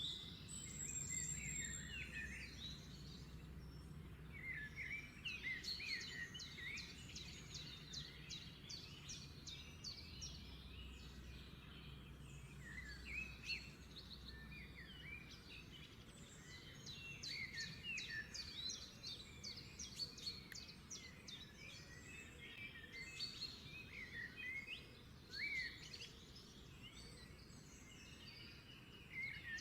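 Birds chirping and singing, many short overlapping calls and quick sweeping notes, over a faint low hum.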